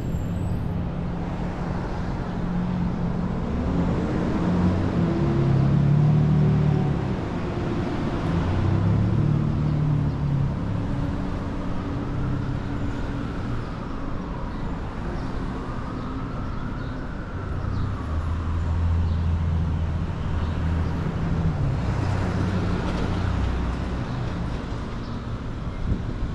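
Street traffic: motor vehicles running and passing, a steady low engine drone with engine notes that rise and fall, loudest about six seconds in.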